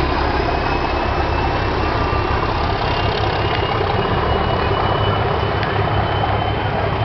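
Queensland Rail SX-class electric multiple unit set 1620 moving slowly past: a steady low rumble of the train with a faint high whine that rises slowly.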